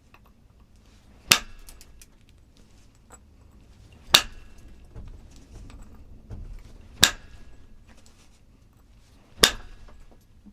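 Flintknapping: four sharp percussion strikes on a stone piece, roughly every two and a half seconds, each with a brief glassy ring, as flakes are driven off to remove a hinge fracture.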